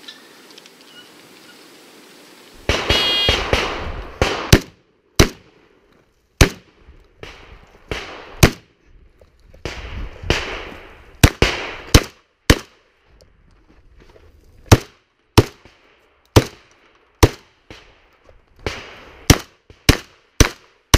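A Saiga-12 semi-automatic 12-gauge shotgun firing a long string of shots, single sharp reports mostly about a second apart with some quick pairs, starting a few seconds in after wind noise.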